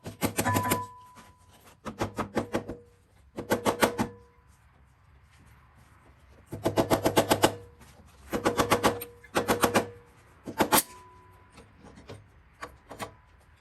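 Hand socket ratchet clicking in repeated short bursts of rapid metallic clicks while clip-on handlebar bolts are tightened or loosened.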